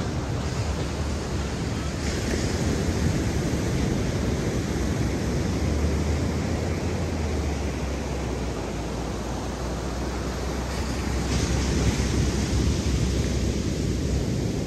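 Ocean surf washing steadily, with wind rumbling on the microphone; the rumble swells from about six seconds in.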